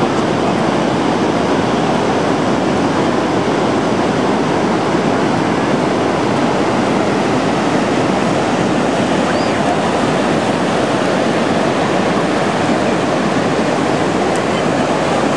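Ocean surf breaking on a sandy beach, a loud, steady wash of noise with no pauses.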